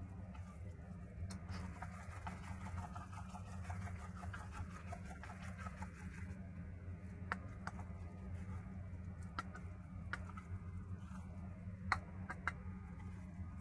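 Metal spoon stirring and folding a wet minced-shrimp mixture in a stainless steel bowl: soft squelching with scattered clicks of the spoon against the bowl's side, a few sharper ones in the second half. A steady low hum runs underneath.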